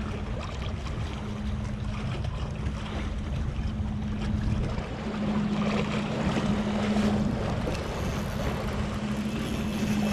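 An engine droning steadily at one even pitch, over the wash of small waves against concrete tetrapods and a low wind rumble on the microphone.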